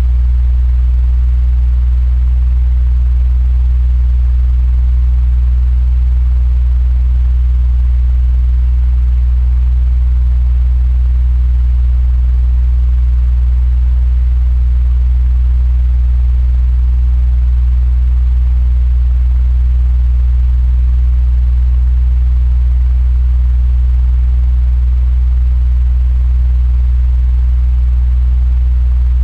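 Electric fan running steadily: a strong, even low hum with a faint airy hiss above it.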